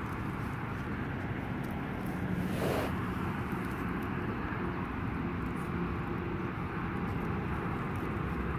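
Steady low drone of a distant engine, with a brief burst of noise about two and a half seconds in.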